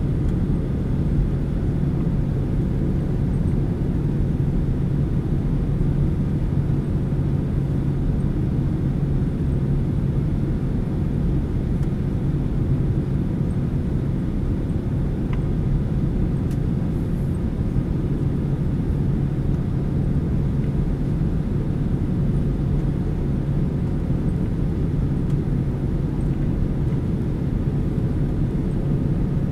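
Cabin noise of a Boeing 767-300ER on final approach: the steady drone of its twin jet engines and the airflow over the fuselage, with a steady low hum.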